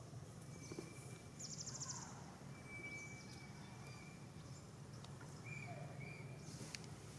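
Quiet outdoor ambience: a steady low hum with scattered high chirps and thin whistles of birds, and a short rapid trill about one and a half seconds in.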